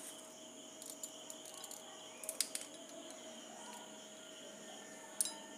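Small sharp plastic clicks from a hand-held modak mould being handled and filled: a few together about two seconds in and one louder click near the end. Under them runs a faint, steady, high-pitched background tone.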